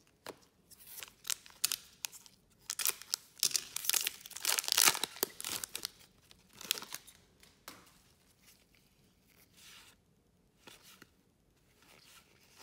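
Foil trading-card pack wrapper being torn open and crinkled, a dense crackling rip that is loudest in the first half. After that come fainter scattered clicks and rustles of the cards being handled.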